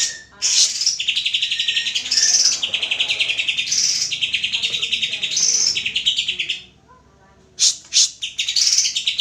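Green leafbird (cucak hijau) singing in loud, high-pitched phrases of fast trills, each about a second long and run back to back, breaking off for about a second near the end before two sharp notes and more trilling.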